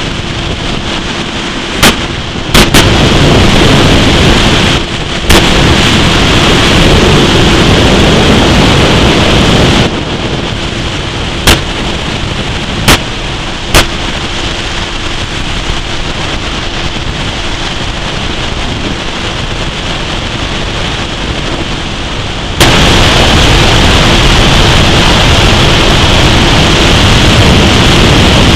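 Wind blasting the microphone on the bow of a fast-running aluminum bass boat, over the steady drone of its outboard motor, with a few sharp knocks. The rush gets suddenly louder in stretches and stays louder for the last quarter.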